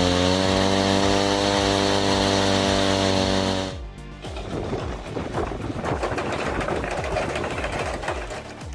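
Two-stroke Ural chainsaw engine running at high revs, its pitch dipping slightly and then holding steady, cut off abruptly a little under four seconds in. After it comes a quieter, irregular clattering mechanical noise.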